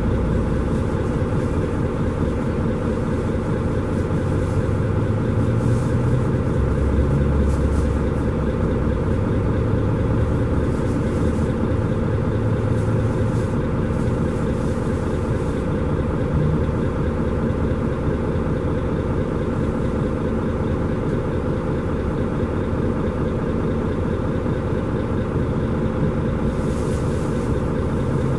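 Cabin noise inside a Mercedes-Benz Conecto G articulated city bus: the engine runs steadily at low revs, its low note swelling a few times in the first half, over a constant mechanical drone.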